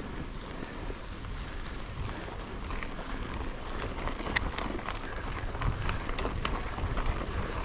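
Mountain bike riding a dirt trail, heard from a GoPro on the bike or rider: wind buffeting the microphone with a low rumble, and the tyres and frame giving sharp clicks and rattles over stones, more frequent from about three seconds in.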